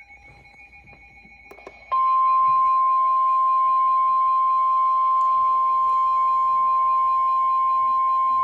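NOAA Weather Radio 1050 Hz warning alarm tone: a single loud, steady beep that switches on abruptly about two seconds in, after a couple of faint clicks, over light radio static. The tone signals that a warning, here a flood warning, is about to be read.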